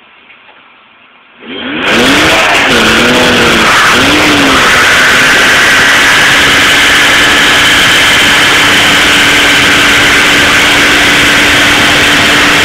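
Holden VL Commodore doing a burnout. After a quiet start, the engine bursts in very loud about a second and a half in and is revved up and down a few times. It is then held at steady high revs with the rear tyres spinning and squealing.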